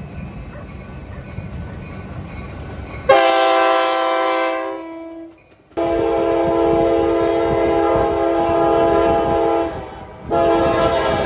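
A locomotive's multi-chime air horn sounds two long blasts and a short one, the opening of the long-long-short-long grade-crossing signal, over the low rumble of the approaching train.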